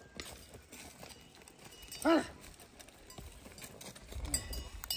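A farm animal's single short, loud call about two seconds in, rising then falling in pitch.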